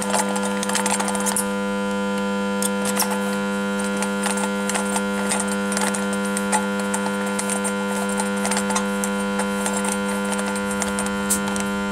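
Steady electrical hum with several overtones, with scattered light clicks and taps of metal parts being handled as the compression-gauge fitting is moved to the next cylinder of a 1.6 diesel engine.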